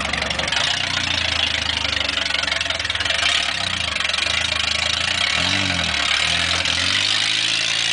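Demolition derby car's engine running, its pitch rising and falling briefly about two thirds of the way through, with a loud steady hiss.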